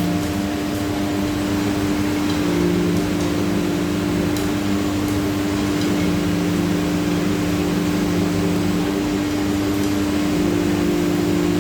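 CNC router running: the spindle gives a steady hum, and the axis drive motors add a lower tone that comes and goes every few seconds as the head moves.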